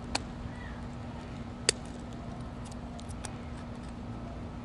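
Light metallic clicks and ticks from working a Clamptite tool and its steel clamp wire on a hose, with one sharp click about a second and a half in, as the wire is snipped off.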